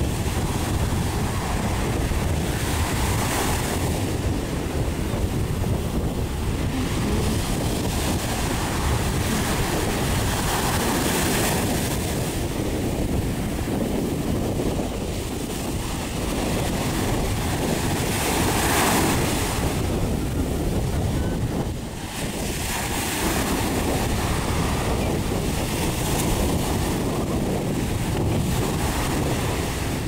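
Small surf waves washing up and hissing over a sandy beach, swelling and fading every few seconds, under heavy wind rumble on the microphone.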